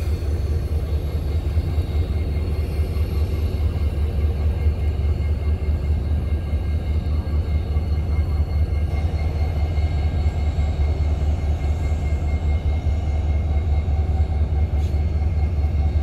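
Union Pacific diesel locomotives, among them the Rio Grande heritage SD70ACe No. 1989, rumbling steadily as they roll slowly past.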